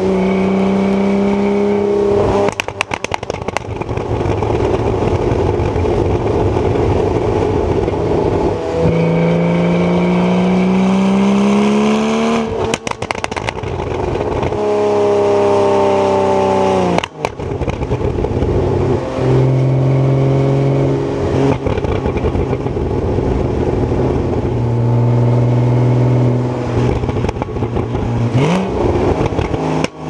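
Porsche Boxster 981's flat-six through a sport exhaust, pulling up through the gears of a manual gearbox. Pitch climbs steadily, then drops at each gear change, about four times. Short bursts of crackling come at the shifts.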